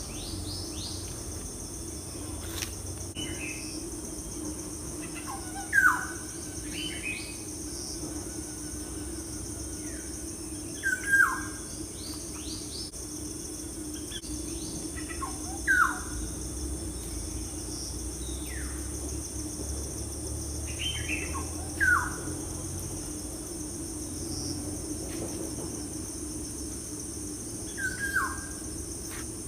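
Birds calling over a steady, high-pitched insect chorus. One bird gives a short, falling call about every five or six seconds, and these are the loudest sounds, with fainter higher chirps between them.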